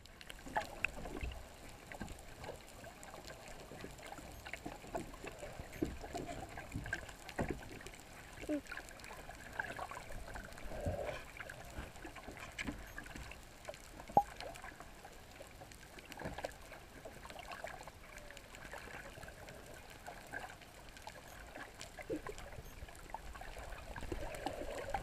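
Muffled water sound from a camera held underwater: sloshing and gurgling water with scattered small clicks and knocks, one sharper click a little past halfway.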